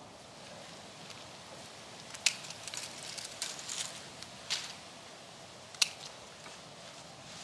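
Hand pruning shears snipping thin twigs: three sharp snips about two seconds apart, with light crackling of twigs and branches between the first two.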